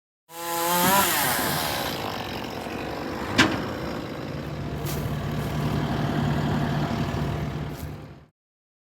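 An engine revs up briefly, then runs steadily, with one sharp clank about three and a half seconds in.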